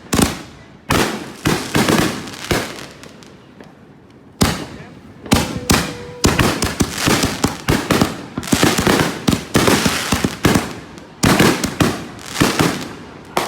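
Fireworks going off: sharp bangs with crackling, a lull of about two seconds, then dense, near-continuous bursts and crackle from about four seconds in.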